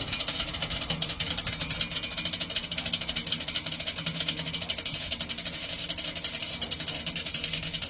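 Old box fan fitted with a steel-spoked bicycle rim in place of its blades, running with a steady motor hum and a fast, even rhythmic clatter as the rim spins. It has just been switched to its low setting, which the owner thinks does not work, so it is slowing down.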